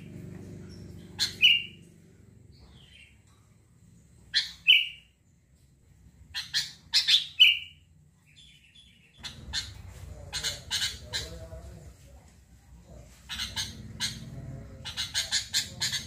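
Sooty-headed bulbul (kutilang) calling in short, bright phrases about 1.5, 4.5 and 7 seconds in, then a quicker series of notes from about 9 seconds on, over a faint low hum.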